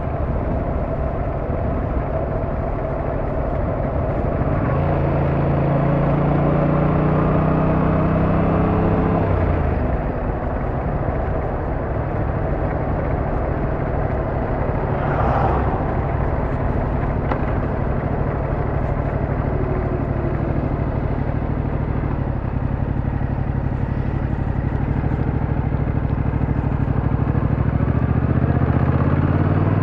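Motor vehicle engine and road noise while travelling. The engine pitch climbs about four seconds in, drops back about ten seconds in, holds steady, and rises again near the end, with a brief rattle or knock midway.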